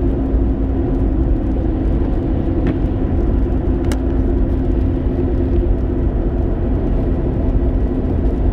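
Car cabin noise at highway speed: a steady low rumble of tyres and engine with a constant drone.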